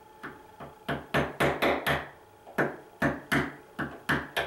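Hammer tapping the handle of a screwdriver held on a nail head, used as a punch to drive the nail deeper into a plywood sewing-table top: about a dozen sharp knocks in uneven groups, the first two light.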